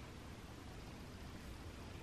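Faint steady hiss with a low hum underneath: quiet room tone, with no distinct sound.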